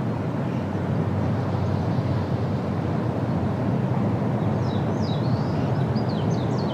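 The steady rush of the Rhine Falls, a large river waterfall, with a small bird chirping in quick short notes from about the middle onward.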